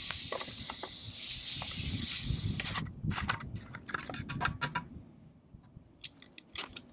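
Pump garden sprayer hissing steadily as trapped air pressure escapes while its pump assembly is unscrewed, for about two and a half seconds before cutting off. Light plastic clicks and knocks follow as the pump is lifted out of the tank.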